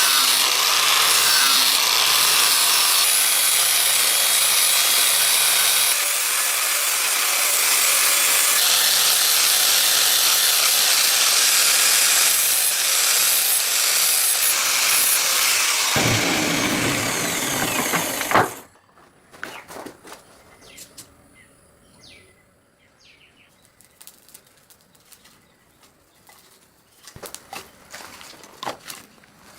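Power grinder running against the steel of a forged knife blade in one long steady pass, cutting off suddenly about 18 seconds in. Scattered light clicks and knocks of handling follow.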